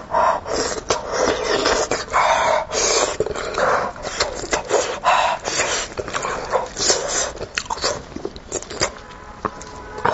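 Close-miked, irregular chewing, lip-smacking and sucking sounds of a person eating sheep head meat, with clicks of the mouth throughout; the sounds thin out near the end.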